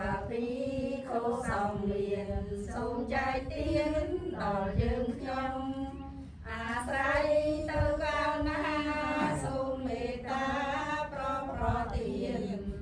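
Buddhist devotional chanting in Pali by several voices in unison. It runs in long phrases held on steady pitches, with a short pause about six seconds in.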